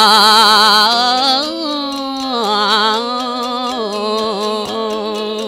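A solo voice singing a Balinese geguritan verse (tembang), drawing out long melismatic notes with wide vibrato that slide downward. It grows quieter after about a second and a half.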